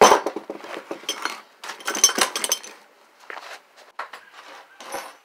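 Metal hand tools clinking and clattering on a workbench as they are handled and set down, in a string of separate knocks and clinks.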